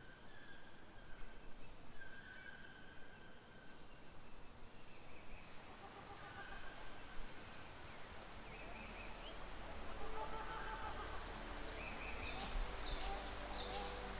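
Tropical rainforest ambience: a steady high-pitched insect drone with short, repeated bird calls over it. From about ten seconds in, more bird calls join and a low rumble sits underneath.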